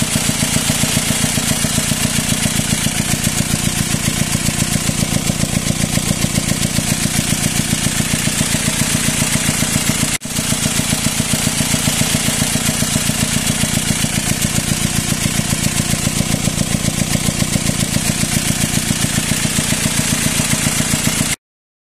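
Diesel car engine idling with a loud, rough, steady clatter, heard at the engine bay. It breaks off briefly about halfway. The noise seems to come from the intake side, and it began after a broken timing chain and a repaired cylinder head.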